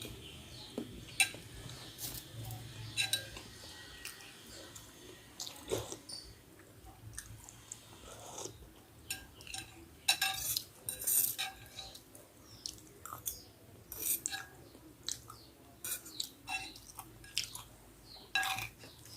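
Spoon clinking and scraping in a bowl of meatball soup, with close-up chewing of bakso between the irregular clicks.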